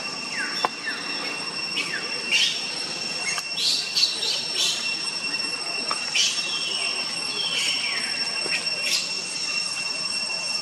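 A steady, high, two-pitched insect drone, with repeated short falling chirps over it.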